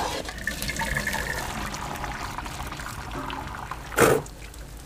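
Water boiling in a pot of vermicelli, bubbling and sloshing as a metal ladle stirs it. A short, loud burst of noise comes about four seconds in.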